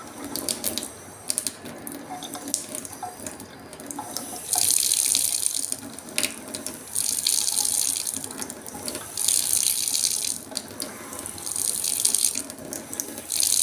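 Kitchen tap running into a stainless steel sink with a pulsating flow: the stream swells to a loud splashing gush four times, roughly every two seconds, and drops back to a thin trickle in between. The surging is the sign of a fault in the water supply that makes the taps pulsate.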